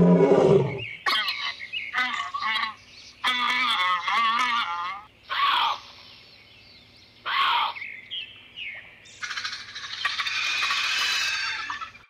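A lion's roar trails off in about the first second, followed by a run of short, separate animal calls with high wavering and chirping sounds.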